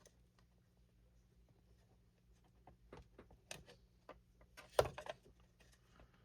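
Light clicks and taps of small model parts and hobby tools being handled on a workbench, with one louder knock about five seconds in, over a faint steady hum.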